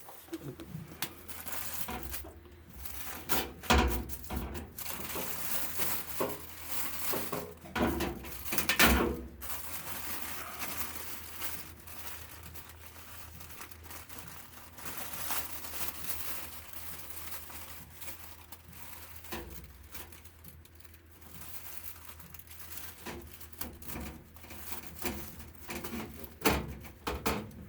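Paper being handled and crinkled, with scattered small clicks and knocks from handling; a few louder knocks about four and nine seconds in.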